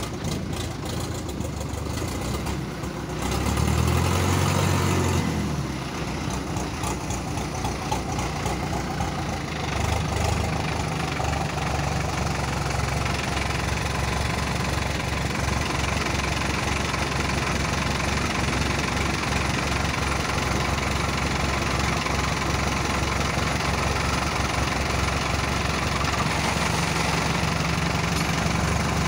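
Diesel tractor engines running, with a louder stretch of revving about three to five seconds in, then a steady, even run.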